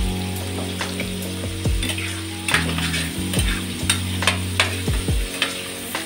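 Pansit miki being stir-fried in a pan: a spatula scrapes and taps against the pan a dozen or so times at an uneven pace, over a steady sizzle.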